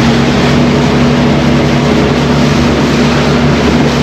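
Motorboat engine running at speed, a steady hum under a loud rush of wind and water.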